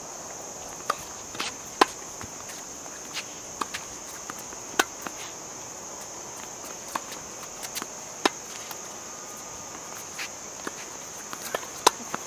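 A tennis rally: sharp pops of the ball off the racquet strings, the loudest every three seconds or so, with fainter pops and bounces between them. Underneath runs a steady high chorus of crickets.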